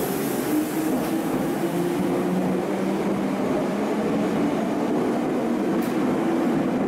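Red Meitetsu electric train pulling out of an underground station platform, the cars passing with a steady running noise of wheels and motors.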